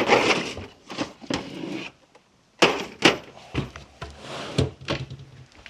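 Handling of a socket set and its case: irregular clicks, knocks and rattles of sockets and plastic as they are sorted through.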